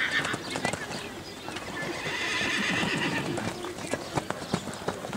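Hoofbeats of a grey pony cantering on a wet sand arena. About two seconds in, a high, drawn-out sound lasts about a second.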